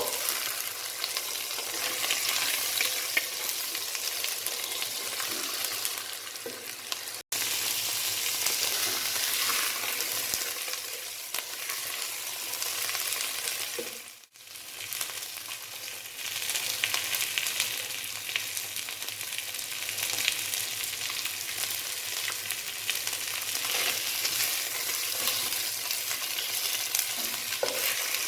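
Food sizzling as it fries in hot oil in a cooking pot, with scattered small clicks of stirring. The sizzle cuts out briefly twice.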